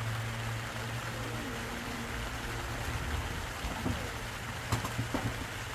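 Steady rain falling, an even hiss, over a steady low hum. A few short knocks come near the end.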